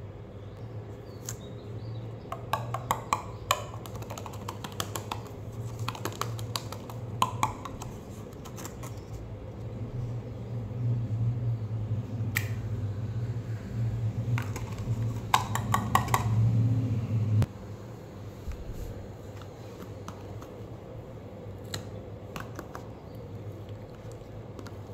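Slime being handled and mixed with a metal spoon in a plastic tub: clusters of small sharp clicks and crackles, over a low steady hum that cuts off suddenly about two-thirds of the way through.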